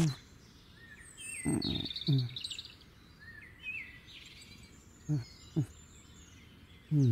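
Birds chirping and twittering in the background, with a few short, low human voice sounds between: two brief ones about a second and a half and two seconds in, two more around five seconds, and a louder falling one near the end.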